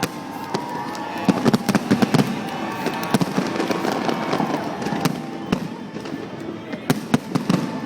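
Fireworks display: a steady barrage of sharp bangs and crackling bursts over a continuous rumble, with dense volleys about a second in and again near the end.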